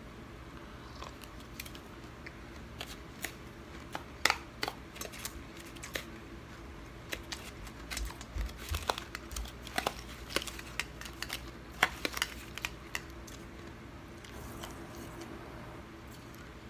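Close-up crunching of a mouthful of freezer frost being chewed: a run of sharp, irregular crackles starting about a second in and dying away near the end.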